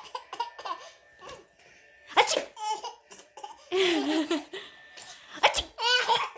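Sharp sneezes, one about two seconds in and another past five seconds, mixed with high-pitched laughter.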